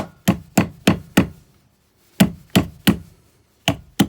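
Broc Tracker knife blade taking small chops into green wood: about ten sharp chops in three quick runs of roughly three a second, with short pauses between the runs.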